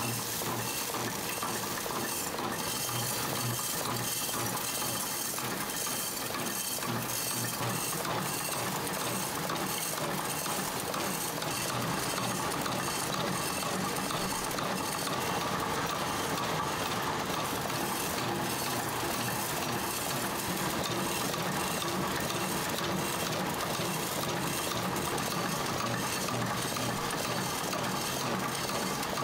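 Screw-making machines running in a steady, dense metallic clatter of rapid clicks, with the clink of small steel screws knocking together.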